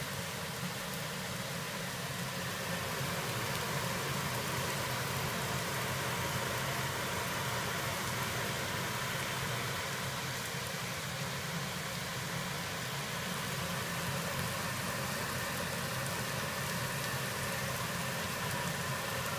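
AKDY 30-inch stainless steel wall-mount range hood's exhaust blower running steadily at its maximum 760 CFM setting: an even rush of air with a low hum underneath.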